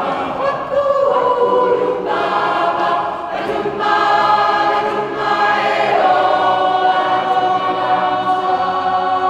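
Mixed-voice community choir singing in harmony in a stone cathedral, with long held chords over the last few seconds.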